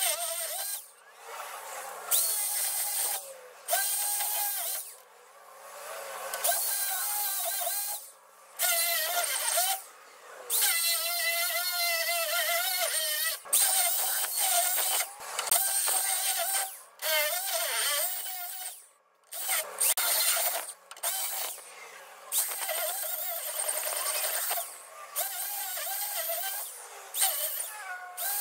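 Corded hammer drill boring out the steel rivets of a truck's lower ball joint, sped up: its whine runs in repeated spells that waver in pitch, with short stops between them.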